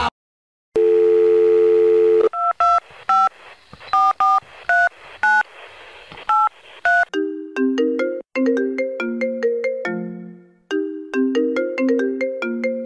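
Telephone call being placed: a steady line tone, then about eleven touch-tone keypad beeps dialling a number, then a repeating ringtone melody that plays its short phrase twice.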